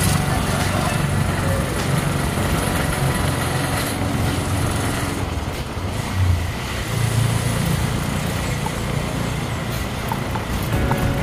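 Steady motor-vehicle engine hum and road noise, as when riding along city streets.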